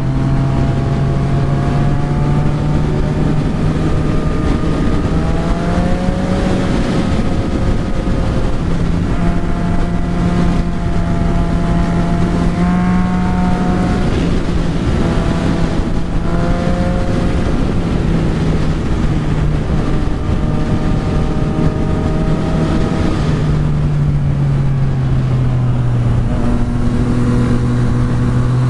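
Yamaha XSR900's inline-three engine running at road speed, its pitch rising and falling with throttle and gear changes and dropping toward the end, over steady wind rush on the microphone.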